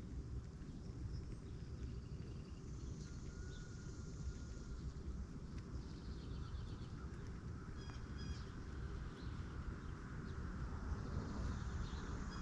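Small songbirds chirping, with short high calls scattered throughout and a brief whistled note, over a steady low rumble.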